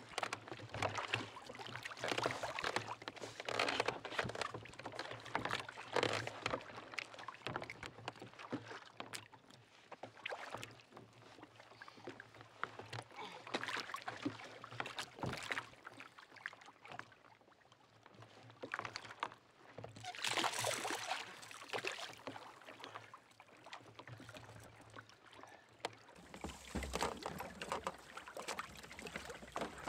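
Seawater splashing and slapping against a sailing kayak's hull and outrigger floats in choppy sea, coming in uneven surges, with a louder rush about two-thirds of the way through.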